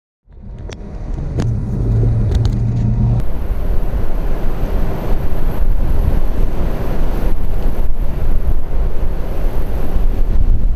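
A vehicle's low, steady engine hum fades in. From about three seconds in, loud rumbling wind noise on the microphone takes over and keeps going.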